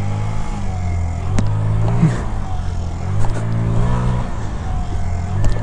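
2022 Scootstar 50cc scooter engine running on the throttle during a wheelie attempt, its pitch rising and falling a little. A couple of short clicks sound along with it.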